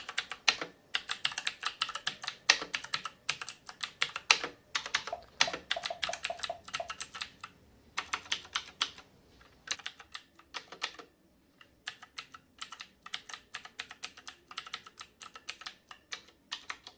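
Typing on a tenkeyless mechanical keyboard with Outemu blue clicky switches: fast runs of sharp clicks, broken by short pauses.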